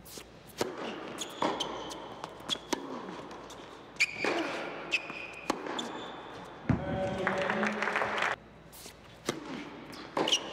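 Tennis ball bounced on an indoor hard court: sharp knocks at irregular intervals that echo in the large hall. Between them come a few brief high squeaks and some voices.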